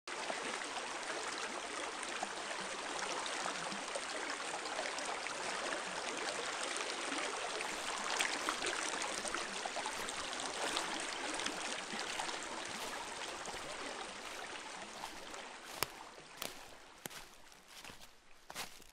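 Shallow stream running over stones, a steady rushing of water that fades over the last few seconds. A few sharp clicks come through near the end.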